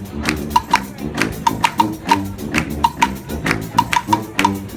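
Street brass band playing: sustained horn chords over a busy pattern of sharp percussion hits, several a second, many with a short high ringing knock.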